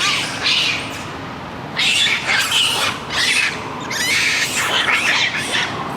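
Monkey calls, a run of rough screeching cries with short gaps between them, standing for a langur.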